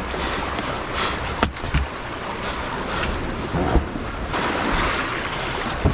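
Sea surge washing around rocks, with wind buffeting the microphone and a sharp knock about one and a half seconds in.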